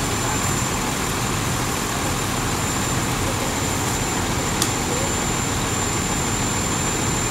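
Fire engine running steadily, an unbroken engine noise with a thin steady high tone over it. A brief click about four and a half seconds in.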